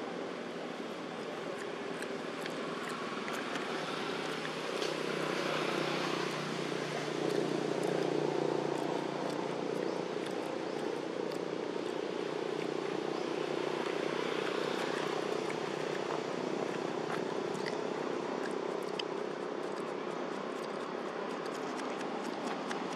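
A distant engine drone over steady outdoor background noise. It grows louder a few seconds in and slowly eases off in the second half, with faint scattered ticks.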